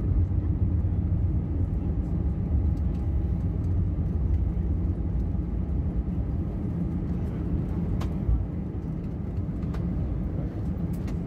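Inside the cabin of an Airbus A320 rolling out on the runway after landing: a steady low rumble of the wheels on the runway and the engines, easing slightly near the end, with a single click about eight seconds in.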